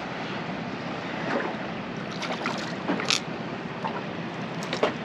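Wind and water noise around a small boat, with a scattering of short sharp clicks and knocks, the loudest about three seconds in.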